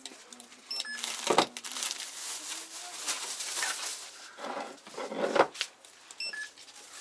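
Handheld barcode scanner beeping twice, once about a second in and again near the end, as goods are rung up, amid rustling and handling of packets and plastic at the shop counter.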